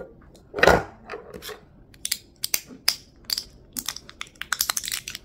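Fingers handling and twisting the metal coil unit of a dotStick Revo vape: a run of small, sharp metal clicks and taps, after one louder rustling thump about a second in.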